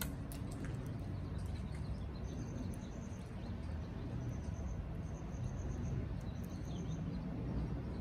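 Steady low outdoor rumble with a cricket chirping: four short, high, evenly pulsed trills starting about two seconds in.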